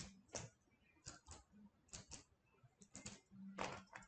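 Faint, irregular clicks from a computer keyboard and mouse, roughly two a second.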